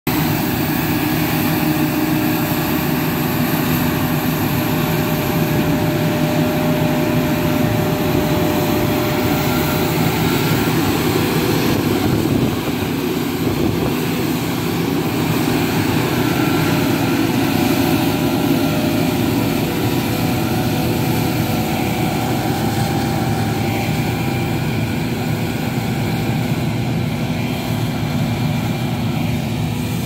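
Combine harvester running steadily under load, its Slavyanka UAS two-drum stripper header stripping standing wheat; a loud, even machine noise with a steady engine hum.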